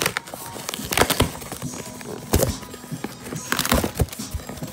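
Cardboard shipping box being handled and pulled open by hand: a run of sharp scrapes, rustles and knocks, with the loudest around a second, two and a half seconds and three and a half seconds in.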